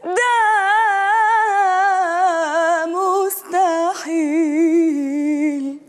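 A woman singing an Arabic song unaccompanied: a long held note with a wide vibrato, a quick ornamented run about three seconds in, then a lower held note.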